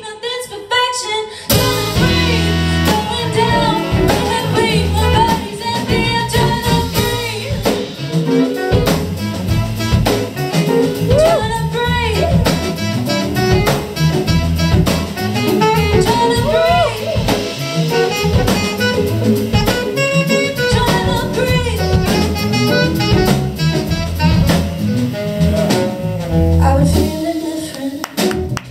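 Live band playing a jazzy song on electric guitar, drum kit, saxophone and trumpet, with the saxophone playing bending lead lines through an instrumental stretch.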